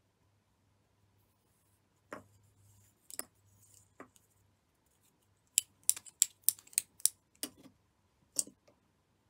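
Plastic tatting shuttles clicking and tapping as they are handled: a few soft taps, then a quick run of about eight sharp clicks, roughly three or four a second, and one last click near the end.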